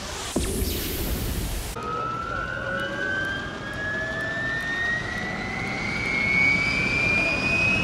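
A brief whoosh that cuts off sharply, then a turbine whine rising slowly and steadily in pitch: the Bell UH-1H Huey's Lycoming T53 turboshaft spooling up, as at engine start.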